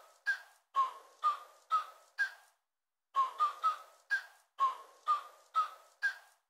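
Background music: short, clipped whistle-like notes in a rising four-note figure, repeated several times with silence between the notes.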